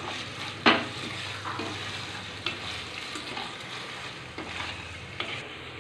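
Sliced onions and green chillies sizzling in oil in an aluminium pressure cooker, stirred with a wooden spatula that knocks against the pot a few times, loudest about two-thirds of a second in.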